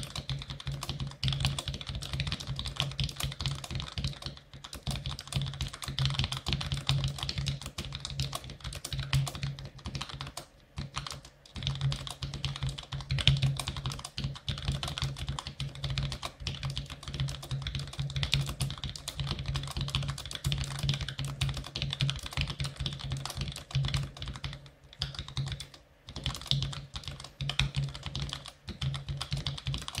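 Fast, continuous typing on a Cherry G84-4100 compact keyboard with Cherry ML key switches: a dense run of key clacks, with a break of about a second roughly ten seconds in.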